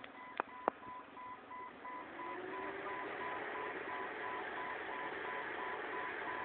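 A Jeep's engine pulling through deep snow, growing louder from about two seconds in as it comes closer. Throughout, a rapid, even electronic beeping, with two sharp clicks near the start.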